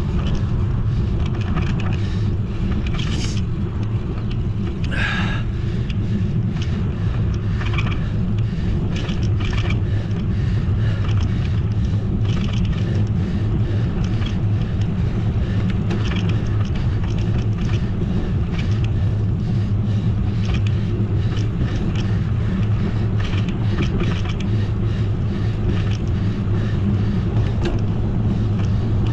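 Steady low rumble of wind and road noise from a bicycle ridden at speed, picked up by the rider's camera, with faint scattered ticks.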